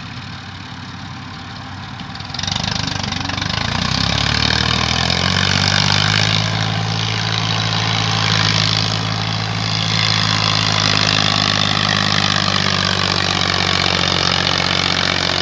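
Massey Ferguson 135 tractor's diesel engine idling, then opening up about two seconds in. Its pitch climbs and then holds steady as it pulls a trailer heavily loaded with sacks past close by.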